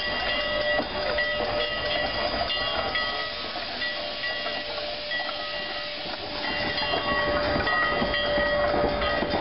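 Steam locomotive running with a steady hiss of steam and a faint steady tone underneath.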